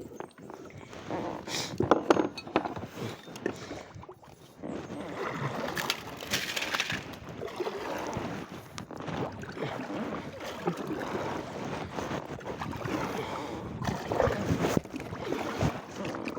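Kayak paddling: a paddle dipping and splashing through the water with uneven sloshing, and a few sharp knocks scattered through.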